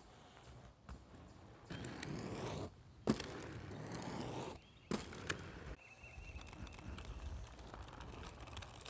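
Inline skate wheels rolling over rough asphalt, with two sharp clacks about three and five seconds in.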